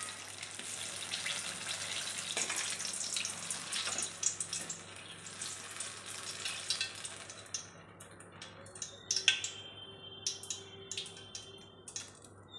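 Batter-coated nendran banana deep-frying in hot oil, a dense crackling sizzle that thins about halfway through to scattered pops and clicks as the cooked piece is lifted from the oil.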